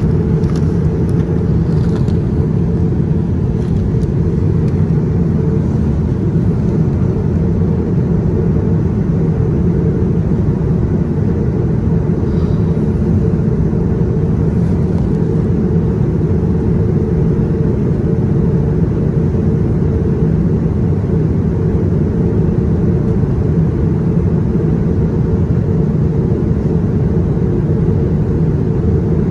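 Steady low drone of a jet airliner in cruise, heard inside the cabin: engine and airflow noise at a window seat beside the engine.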